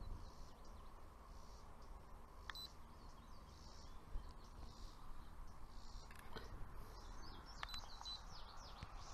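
Faint outdoor ambience: small birds chirping now and then over a low, steady background noise, with more chirps in the second half.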